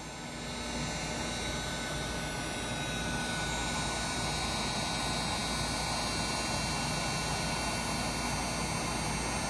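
Electric heat gun running: a steady rush of blown air with a thin fan-motor whine, growing a little louder over the first second, as it heats heat-shrink tubing.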